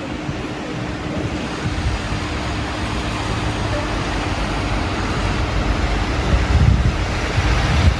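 City street ambience: a steady wash of traffic noise, with wind buffeting the microphone in low rumbling gusts that grow stronger near the end.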